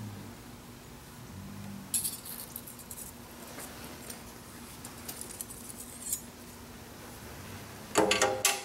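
Light metallic clicks and clinks of a feeler gauge and steel square being handled against a machined cast-iron face while checking it for square. A denser, louder clatter of metal on metal comes near the end, over a faint steady hum.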